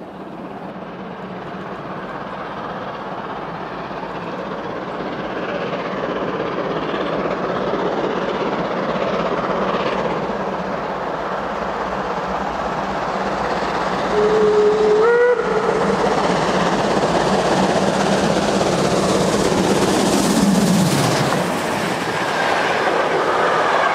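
Steam special train with Class 01 steam locomotive 01 066 approaching and passing: a rumble that grows steadily louder, one short whistle blast about 14 seconds in that steps up in pitch partway, a low hum that drops in pitch as the locomotive goes by about 20 seconds in, then the rumble and clatter of the passing coaches.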